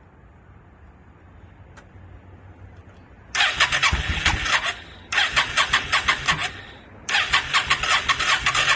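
2002 Yamaha V-Star 650's V-twin being cranked on its electric starter in three bursts, each a second and a half or so long with short gaps between, turning over rapidly without catching. The owner believes the engine is flooded.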